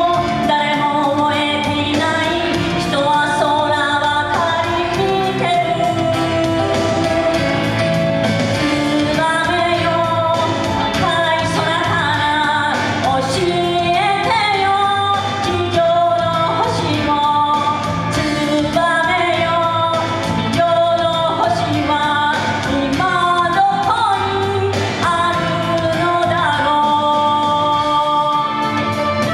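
A woman singing a Japanese pop song with instrumental accompaniment.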